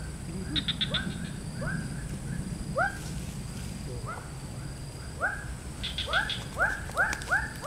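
An animal calling: a series of short, upward-sweeping notes, spaced out at first and coming faster near the end, about three a second. Twice a short burst of rapid high-pitched ticks cuts in, about half a second in and near six seconds.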